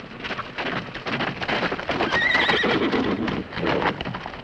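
Horses galloping in a dense clatter of hooves, with one horse whinnying about two seconds in.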